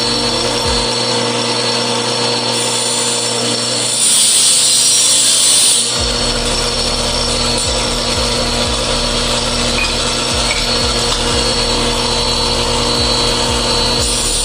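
Electric power tool running steadily and cutting wood, taking out the marked centre portion of a wooden corner joint. It grows louder and harsher for about two seconds, about four seconds in.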